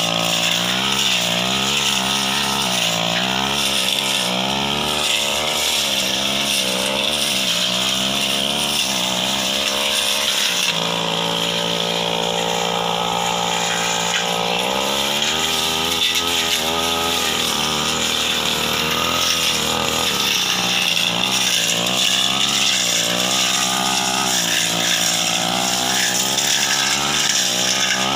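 Petrol backpack brush cutter running at high revs while cutting through dense ferns and scrub, its engine pitch dipping and recovering as the blade bites into growth. For a few seconds near the middle the pitch holds steady.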